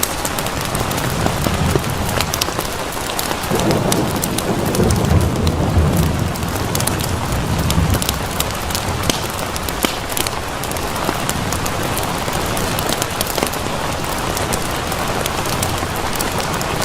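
Steady rain with scattered sharp crackles of a wood fire. A low rumble of thunder swells about three and a half seconds in and fades by about eight seconds.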